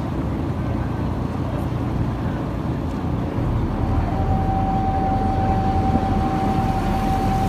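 Catamaran tender's engines running with a steady low rumble that gets louder about three seconds in. A steady high whine joins about a second later and holds.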